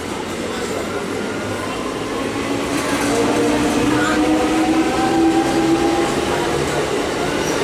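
New Medha EMU local train pulling away: its traction motors give a whine that climbs slowly in pitch as the train gathers speed, over the rumble of wheels on the rails. It grows louder about three seconds in.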